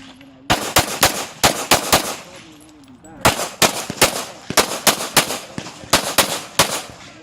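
Open-class competition pistol fired rapidly during a USPSA stage: about twenty sharp shots in three fast strings, with gaps of about a second between strings.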